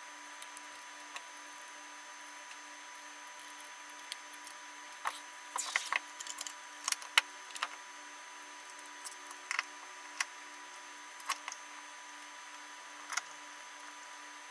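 Scattered sharp clicks and taps of a stepper driver's metal case and small hand tools being handled on a workbench mat as the driver is reassembled, over a faint steady electrical hum. The clicks come in small clusters from about five seconds in, the loudest near the middle.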